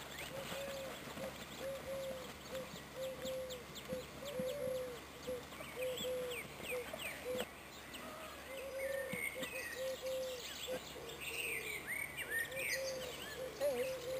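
Birds calling: a steady run of short, low, repeated notes, with quick higher chirps joining in from about halfway.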